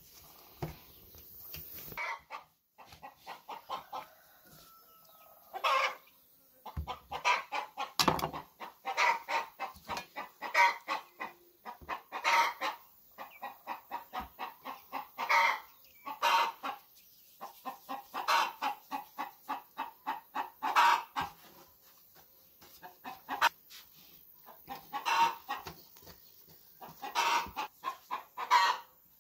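Chickens clucking in runs of quick short clucks, broken every few seconds by a louder, longer note.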